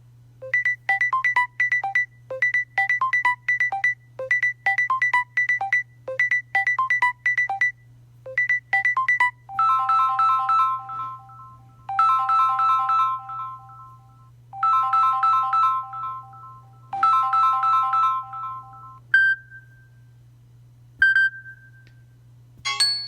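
Samsung Galaxy Note 10 ringtones playing in turn. First a quick electronic melody repeats about seven times, then a ringtone of held three-note chords sounds four times with short gaps. Two single pinging notes follow, and another tone begins near the end.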